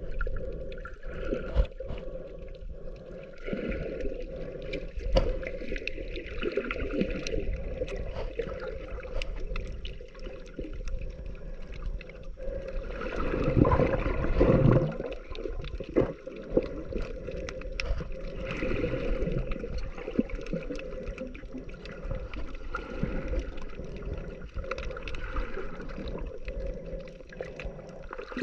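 Water sounds picked up by a camera held underwater: muffled sloshing and gurgling over a steady hum, with scattered sharp clicks. A louder surge of water comes about halfway through.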